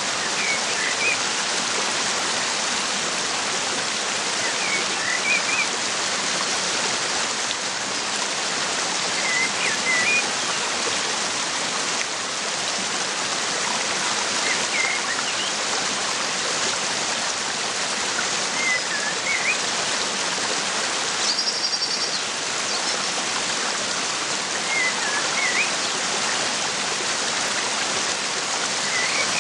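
Waterfall rushing steadily, with a bird repeating a short chirping phrase about every four to five seconds and giving one brief higher call near the middle.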